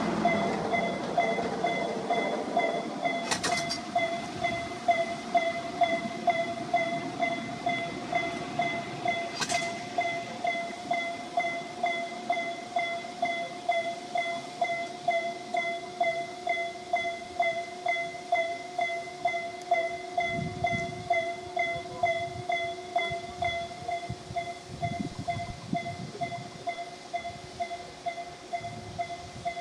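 Japanese railway level-crossing warning bell ringing in a steady, evenly repeating electronic tone, a weak and listless-sounding alarm, its volume slowly falling. A passing train's rumble fades out in the first couple of seconds.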